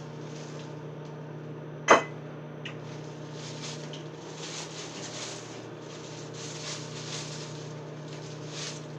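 Microwave oven running with a steady low hum, a single sharp knock about two seconds in, and soft rustling handling noises through the second half.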